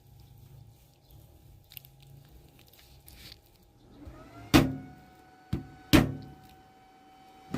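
A motor spinning up with a rising whine about four seconds in, then running on a steady tone, with four sharp knocks over it; the two loudest come about four and a half and six seconds in.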